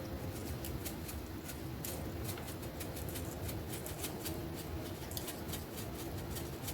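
Light, irregular ticking and pattering of dried Italian seasoning being shaken from a shaker onto a pan of food, over a steady low hum.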